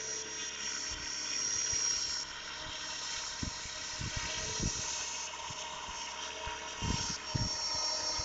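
Radio-controlled scale model helicopter in flight, a steady high whine over a hiss of rotor noise, with gusts of wind buffeting the microphone.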